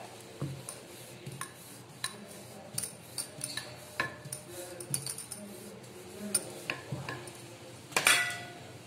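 Rolling pin rolling luchi (maida puri) dough out thin on a counter: a soft low rumble with scattered light clicks and taps, then a louder clatter about eight seconds in.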